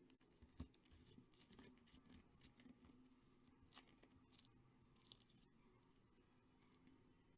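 Faint crinkling, tearing and light tapping of paper and plastic packaging being handled by hand, with scattered small clicks over a low room hum.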